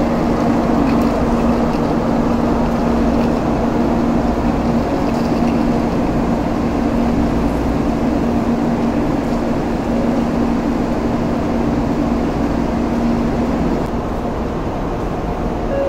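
Shinkansen train at the platform giving off a steady mechanical hum with a constant low tone, easing off slightly near the end.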